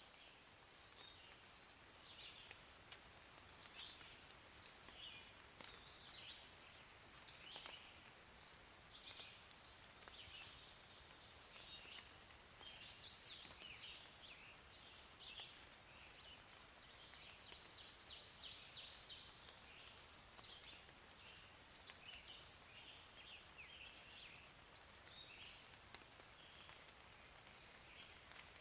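Faint birdsong: many short chirps, with two brief rapid trills partway through, over a light steady hiss.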